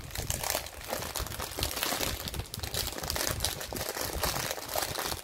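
Clear plastic film wrapped around a rolled diamond painting canvas crinkling and crackling as it is handled.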